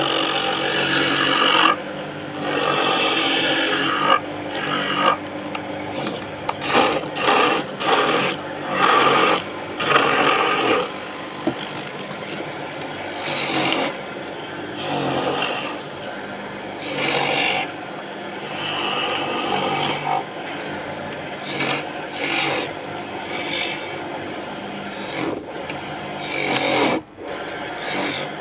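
Abrasive rubbing strokes on wood, as in sanding or rasping a wooden surface. The strokes come irregularly, short and long, over a faint steady hum.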